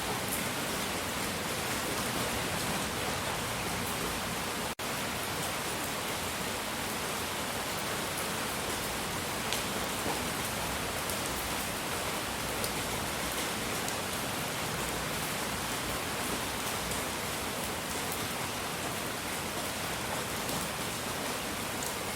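Steady, even hiss of a relaxing noise track, close to pink noise with a faint patter of scattered ticks like light rain. It cuts out for an instant about five seconds in.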